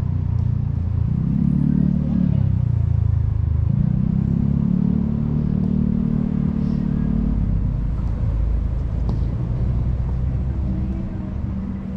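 An engine running, its pitch rising and falling again about a second or two in, then holding steady before easing lower near the end.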